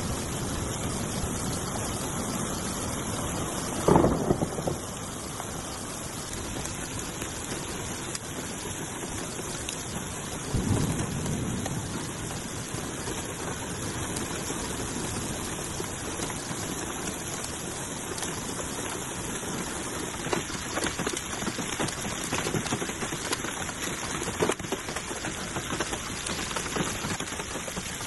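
Heavy rain pelting onto flooded roads, a steady hiss, with two loud thunderclaps, about four seconds in and again about ten seconds in.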